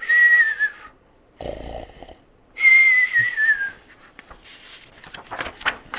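A man imitating a cartoon snore: a whistled note sliding down on the out-breath, a rasping snore on the in-breath, then a second, longer falling whistle.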